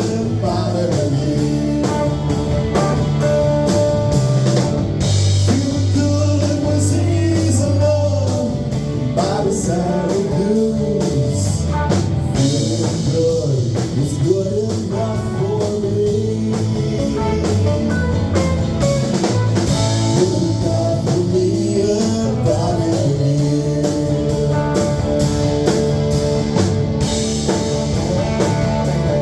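Live band playing a bluesy rock groove on guitars and drum kit, with singing over it.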